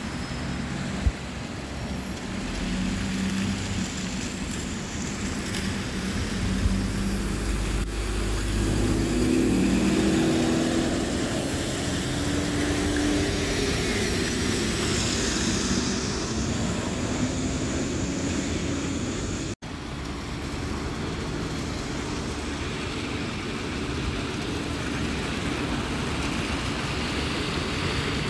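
Bus engines running as a single-decker and a double-decker move past. The engine note rises around ten seconds in, with a brief drop-out about two-thirds of the way through.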